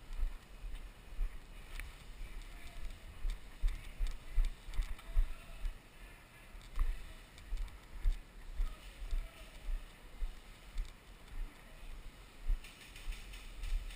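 Footsteps and gear jostling as a player walks, heard as irregular low thumps about once or twice a second, with a few faint clicks.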